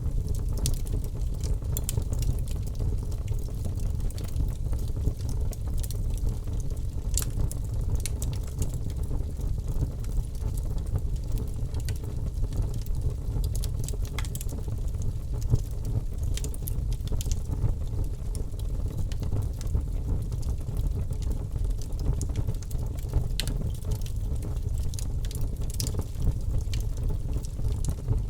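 Birch logs burning in a fireplace: a steady low rumble of flame with frequent sharp crackles and pops scattered irregularly throughout.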